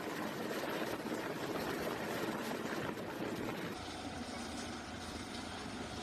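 Mil Mi-8-family helicopter hovering, a dense steady rotor and turbine noise. About four seconds in it gives way to a fast boat's engine and rushing water.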